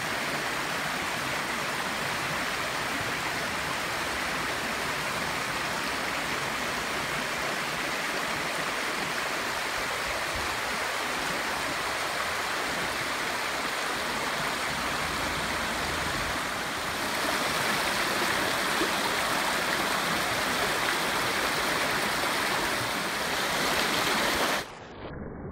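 Fast-flowing rocky stream rushing and splashing over stones, a steady sound that grows louder about two-thirds through. Near the end it drops suddenly to a quieter rush.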